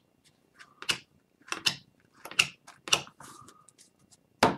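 Hockey cards being handled on a desk: about five short, sharp clicks and taps as the cards are squared up and set down, the loudest near the end.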